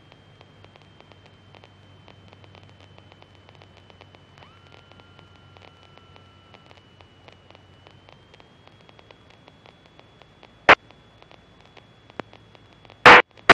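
Faint static hiss on a light aircraft's radio and intercom audio feed, with a steady high whine and rapid fine ticking interference. A short, sharp radio burst comes about ten seconds in, and a louder one just before the end.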